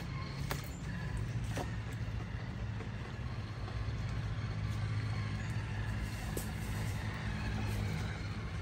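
Traxxas TRX-4 scale RC crawlers driving through shallow water, their electric motors and gearboxes running steadily, with a few light clicks.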